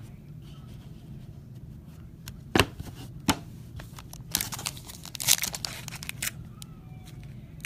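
Trading-card pack wrapper crinkling and tearing as it is opened, with two sharp clicks before it.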